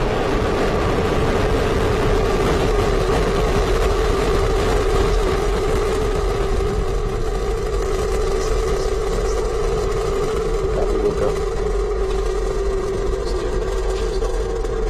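Falcon 9's nine Merlin 1D first-stage engines firing at full thrust just after liftoff: a loud, steady rushing rumble that holds even throughout.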